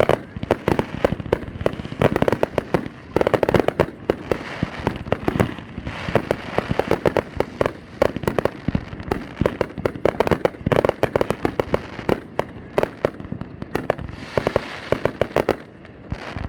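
Fireworks going off in a rapid, nearly continuous barrage of bangs and crackles, in dense clusters with short lulls between them.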